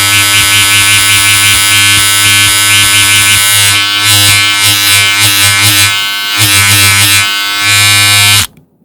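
Electric razor running with a steady buzz. It wavers and dips unevenly through its middle seconds, then cuts off shortly before the end.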